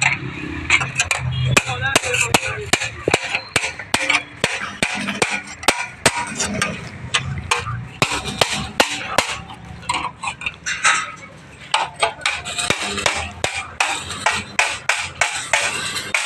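Irregular sharp metallic clinks and knocks, at times several a second, from metal tools and parts being handled and struck during car repair work.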